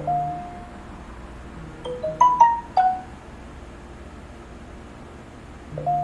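Smartphone notification tones: a single chime at the start, a quick run of about five short chiming notes around two seconds in, and another single chime near the end. They mark incoming text and email alerts from a fire alarm panel reporting a horn-circuit trouble.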